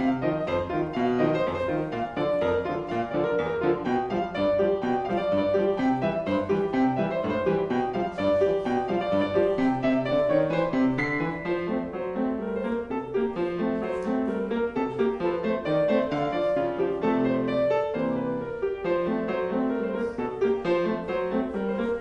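Yamaha grand piano played solo, a quick unbroken stream of notes and chords.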